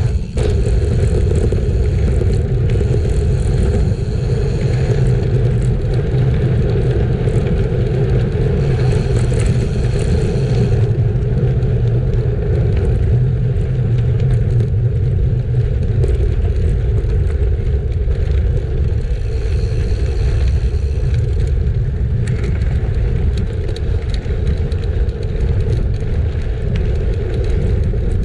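Wind buffeting a bike-mounted microphone while riding, with the rolling and scrape of bicycle tyres on a gravel track: a loud, steady rumble.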